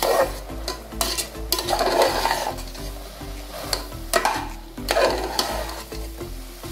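Metal ladle stirring soft cooked jackfruit pieces in an aluminium pressure cooker, with irregular scrapes and knocks of the ladle against the pot.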